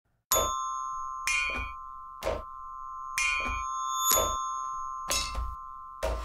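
Music starting abruptly: a held chord under bright, bell-like mallet notes, with a sharp strike roughly once a second.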